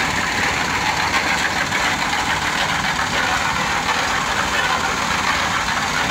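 Small engine of a one-bagger concrete mixer running steadily on site, an even mechanical noise with no change in speed.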